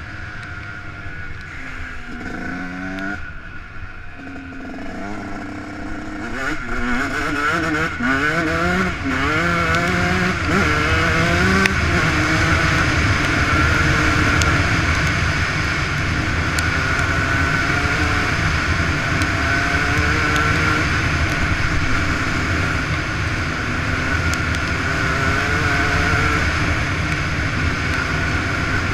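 Yamaha YZ125 two-stroke single-cylinder motocross engine accelerating through the gears, its revs climbing in a series of rising sweeps, then held high and steady at speed, louder than at the start. Wind rushes on the microphone throughout.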